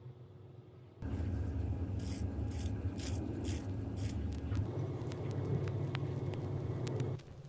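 Chopsticks tearing a piece off a crispy mung bean sprout pancake on a plate: a run of about six short crackles from the crisp, fried sprout edges, then a few lighter clicks, over a low steady hum.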